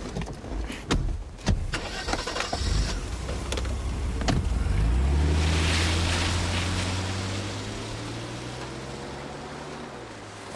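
An older sedan's engine starting after a few knocks, rising in pitch as it catches, then running steadily and fading as the car drives off, its note dropping near the end.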